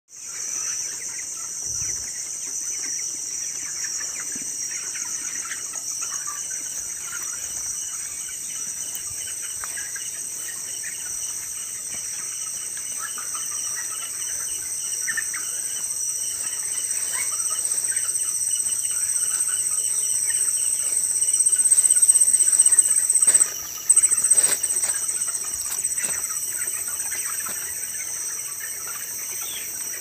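A shed full of broiler chickens peeping and clucking in scattered short calls, under a loud, steady, high-pitched trill of night insects that grows louder and breaks off briefly near the end.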